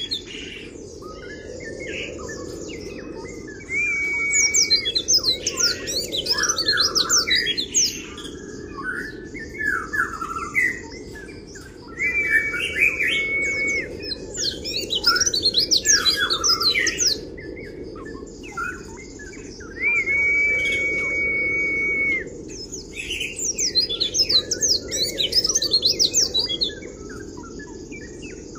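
A white-eye (pleci) singing rapid, high twittering 'kriwik' phrases. A steady held whistle recurs between them, and the pattern repeats about every eight seconds.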